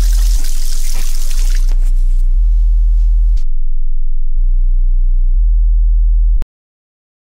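Very deep electronic sine-wave bass tone from a Pure Data patch, stepping between low pitches about once a second. A recorded sample of pouring water plays over it and stops about three and a half seconds in. About a second before the end, everything cuts off abruptly with a click.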